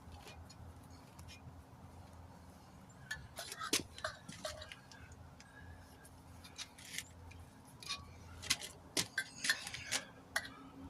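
Scattered light clicks and sharp taps of tools and a wheel being handled during a tire change, with a few quick runs of taps about a third of the way in and again near the end, over a faint steady low hum.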